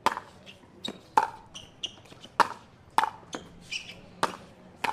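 Pickleball paddles hitting a plastic pickleball back and forth in a singles rally: six sharp pocks, most about a second apart, two of them quicker, with fainter ticks between.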